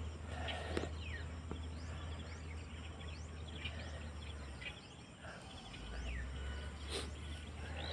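Faint outdoor ambience: small birds chirping, with many short falling whistled calls, over insects and a steady low rumble. A single faint click about seven seconds in.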